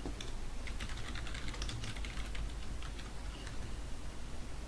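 Computer keyboard typing: a quick run of keystrokes for about two and a half seconds, then a few single key presses.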